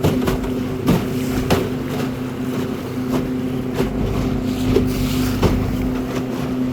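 Fishing boat's motor running at a steady pitch, with a few short knocks.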